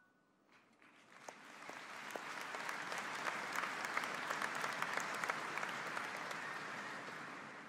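Audience applauding. It swells up after a moment of near silence, holds, and dies away near the end.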